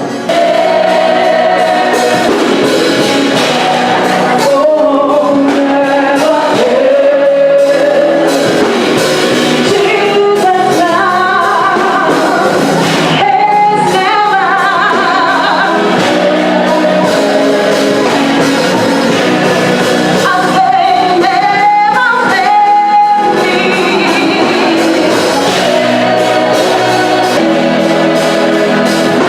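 Music with singing, in the manner of choral gospel music, starting loud just after the beginning and running steadily.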